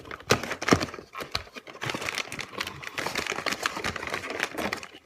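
A snack bag crinkling as it is handled, with irregular crackles and a couple of sharper clicks in the first second.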